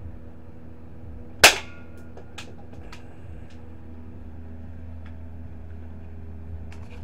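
A single sharp BB gun shot about one and a half seconds in, followed by a few faint clicks, over a steady low hum.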